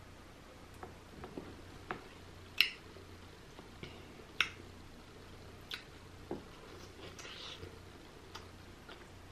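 Close-miked eating sounds of crab and lobster meat being chewed: scattered wet mouth clicks and smacks, the two sharpest about two and a half and four and a half seconds in, over a low steady hum.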